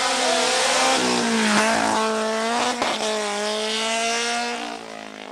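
Race-prepared Autobianchi A112 prototype with a 1.6-litre engine driving a slalom course. Its engine note drops in pitch about a second and a half in, holds steady, and fades away near the end as the car pulls off.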